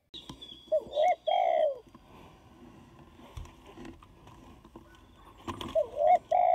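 Spotted dove (tekukur) cooing: two short phrases of a few hooting notes, one about a second in and another near the end.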